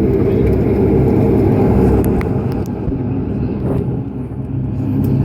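Dash 8 Q400 turboprop engines and propellers heard inside the passenger cabin: a steady low drone with several held tones, and a few faint clicks about two seconds in.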